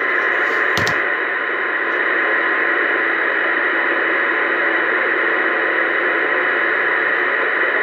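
CB radio on channel 19 AM giving a steady, loud hiss of static through its speaker, with a short click about a second in.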